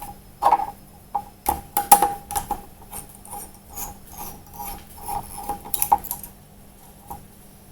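Handling noise: irregular light clicks and small metallic clatters as graphics-card hardware and cooler parts are moved about by hand, a few sharper knocks among them.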